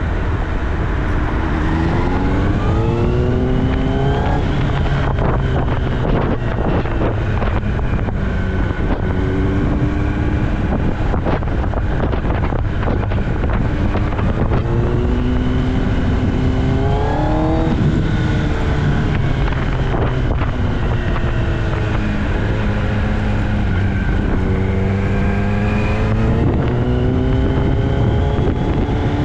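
Kawasaki ZX-10R's inline-four engine through an Austin Racing aftermarket exhaust, pulling up through the revs several times with the pitch climbing on each pull and easing off in between, with one quick blip of the throttle partway through.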